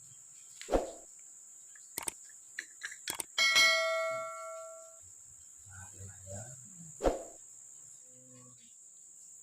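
One bell-like ring about three and a half seconds in, after a few light clicks, fading away over about a second and a half. Two dull thumps, one near the start and one near the end, over crickets chirring steadily.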